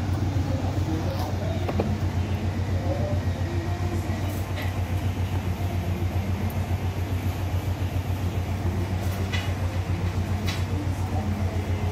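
Steady low mechanical hum with a rapid, even flutter, and a few faint clicks over it.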